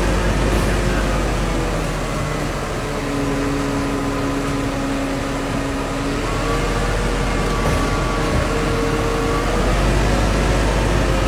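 Truck-mounted crane's diesel engine running steadily under load with a low hum, its whining tones stepping to a new pitch about six seconds in as the crane works the lift.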